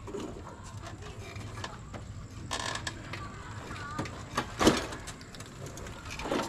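Scattered sharp clicks and knocks of something being handled close by, the loudest a single knock about four and a half seconds in, with faint voices in the background.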